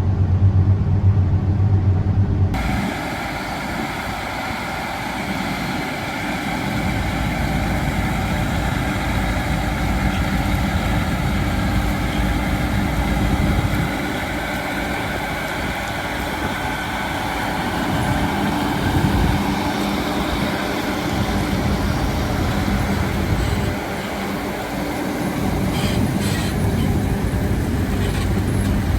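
John Deere X9 1100 combine running while harvesting wheat, a steady machine noise. About two and a half seconds in, the sound changes abruptly from a low, even hum to a fuller, noisier drone.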